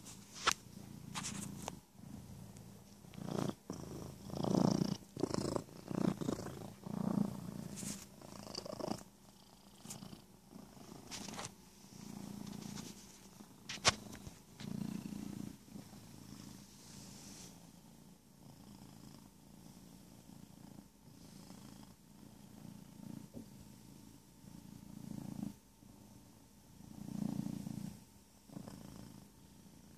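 Domestic cat purring close up, the purr swelling and fading with each breath about every one to two seconds. A few sharp rustles of fur and handling come in the first half as a hand strokes the cat.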